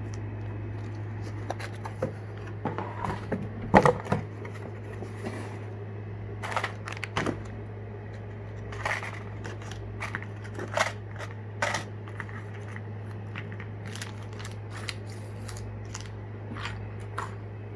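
Fishing tackle and its plastic packaging being handled: irregular clicks, taps and crinkles, a cluster of the loudest about four seconds in, over a steady low hum.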